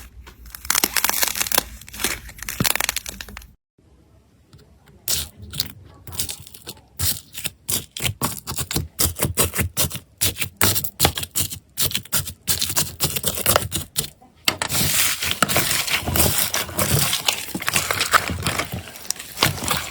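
Slime being pressed and stretched by hand, giving rapid sharp crackles and pops. There is a short gap about three and a half seconds in, and the crackling becomes dense and continuous from about fourteen seconds.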